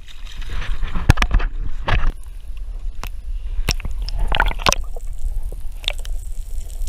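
Water sloshing and gurgling, heard from just below the surface, over a steady low rumble, with scattered sharp clicks and knocks.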